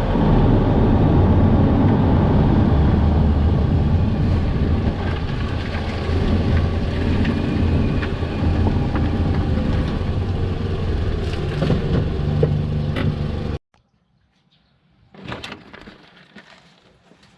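Toyota Vanguard 240S with its 2.4-litre 2AZ-FE engine running: a steady low rumble of engine and road noise. It cuts off suddenly near the end, leaving a few faint knocks and clicks.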